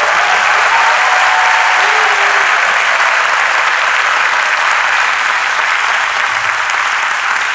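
Large audience applauding steadily, with a few faint voices calling out in the first two seconds.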